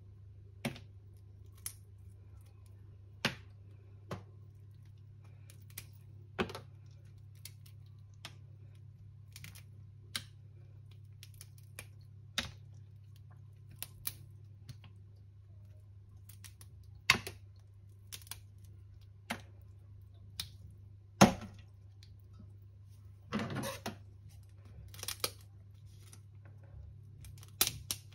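Scattered sharp clicks and knocks of hands-on kitchen work, one every second or few, more often near the end, over a low steady hum.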